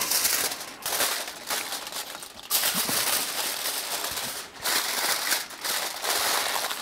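Aluminium foil crinkling and rustling in irregular bursts as it is folded and pressed by hand around a burger.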